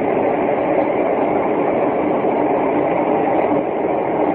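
Loud, steady droning rumble of unknown origin with no breaks or clear pitch.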